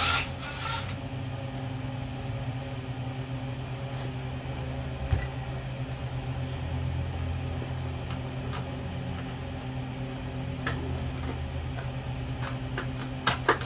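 A short burst from a cordless power tool as it works on the bike at the very start, then a steady low hum in the garage with a few light metallic clicks from hand tools.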